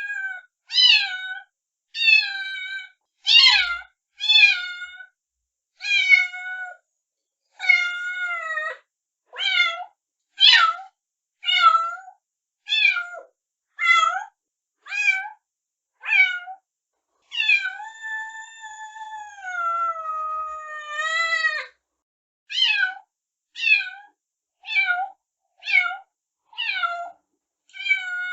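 A newborn kitten crying: short, high-pitched mews repeated about once a second, with one long drawn-out cry that slowly falls in pitch about two thirds of the way through. These are the insistent cries a young kitten makes to call its mother.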